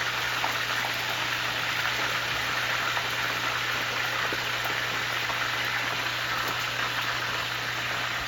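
Snapper frying in hot oil, a steady sizzling hiss with a few small pops, over a steady low hum.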